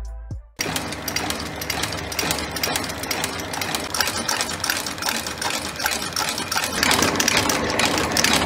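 Heavy cast-iron industrial stitching machine running, a rapid mechanical clatter that starts about half a second in.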